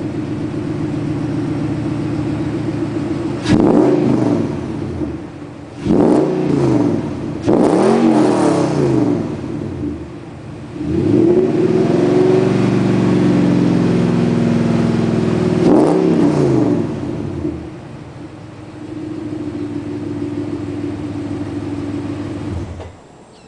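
Nissan Titan's 5.6-litre V8 running through a Dynomax cat-back exhaust with Ultra Flo muffler and Nismo headers: idling, revved in several quick blips with one longer hold at higher rpm in the middle, back to idle, then shut off near the end.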